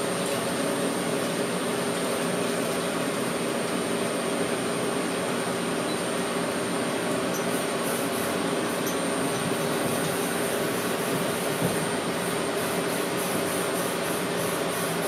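Brother Speedio S700X1 CNC milling machine running with a steady whirring hum and a faint high whine.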